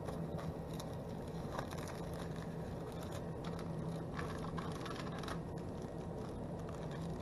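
Plastic zip-top bag crinkling and rustling in the hands, with light scrapes and taps against a plastic tray, over a steady low hum.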